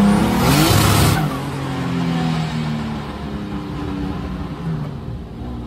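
Turbocharged BMW M50/M52 straight-six in an E36, heard from inside the cabin, pulling hard with its revs climbing and a loud turbo rushing hiss that cuts off sharply about a second in. The engine then drops to a lower, steadier run, easing off.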